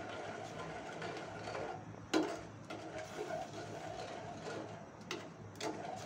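A steel spatula stirring and scraping thickening milk and sugar in a stainless-steel pan, under a faint steady background. A few light metal knocks on the pan come through: one about two seconds in and two near the end.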